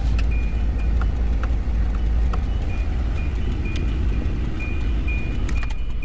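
Kia Bongo III truck's diesel engine idling, a steady low rumble heard from inside the cab. A faint short high beep repeats about twice a second over it.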